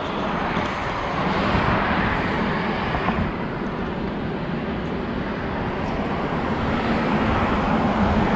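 Steady outdoor background noise: an even rushing hiss over a low rumble, like road traffic and wind, with no distinct events.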